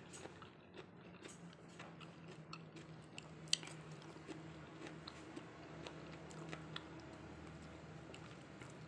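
Close-up chewing of a mouthful of boiled sweet potato leaves with sambal: soft wet mouth sounds and small irregular clicks, with one sharper click about three and a half seconds in. A faint steady low hum runs underneath.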